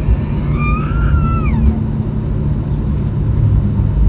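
Airliner cabin noise, a steady low rumble, as the plane rolls along the runway after landing. About half a second in, a brief high cry rises and then falls away.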